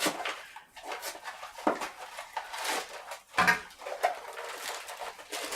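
Small cardboard mystery boxes being pried and torn open by hand: irregular scraping, tearing and rustling of glued cardboard flaps.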